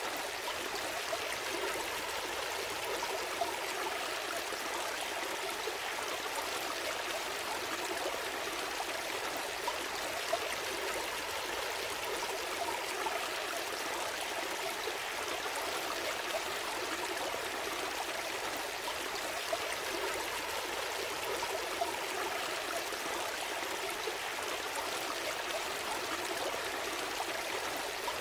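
Small stream flowing and trickling steadily over stones.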